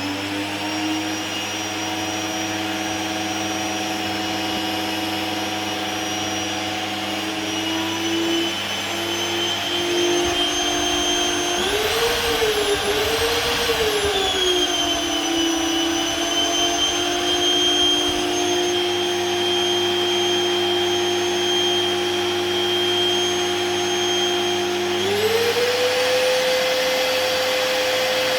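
LG 1600 W vacuum cleaner running steadily with a high motor whine. About halfway through its pitch wavers up and down twice, and about three quarters of the way in the motor speeds up to a higher pitch and holds there.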